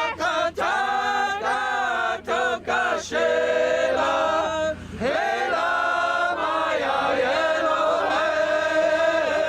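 Voices chanting, with long held notes that slide between pitches and brief breaks for breath.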